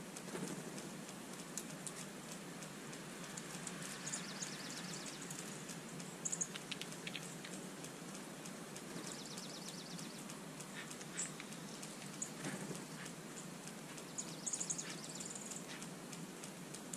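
Water pattering and dripping on wet pavement as a steady hiss with scattered drips. Short, rapidly repeated high-pitched bird notes come in three times, about four, nine and fourteen seconds in. A few sharp taps sound about six seconds in.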